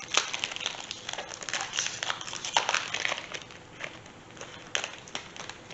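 Plastic packaging crinkling and crackling as it is handled, in irregular bursts of rustle with a few sharper crackles.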